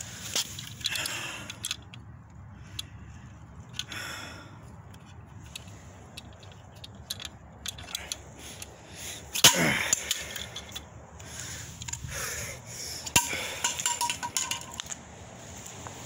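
Irregular clicks and knocks of broken plastic toilet fill-valve pieces being handled and gathered up, with one louder knock a little past halfway.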